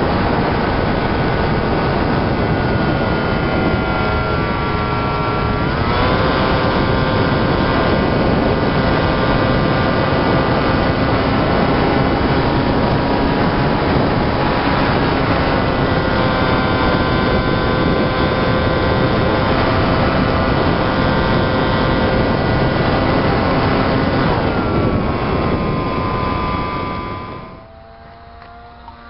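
Homemade pusher RC plane's motor and propeller whining loudly over wind rush, heard from its onboard camera; the pitch dips and climbs again about five seconds in and falls once more near the end. About 27 seconds in the sound drops to a much fainter whine of the same plane, heard from the ground, its pitch gliding.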